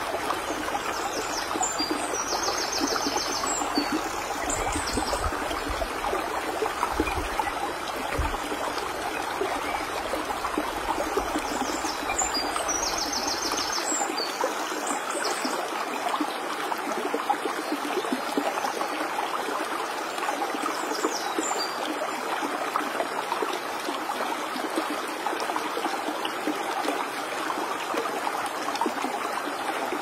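Shallow stream water rushing steadily over a flat rock bed.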